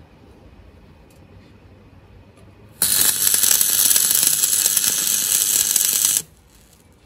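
Stick (SMAW) welding arc on steel, a steady sizzling hiss with fine crackle that starts abruptly about three seconds in and cuts off sharply about three and a half seconds later as a short bead ends.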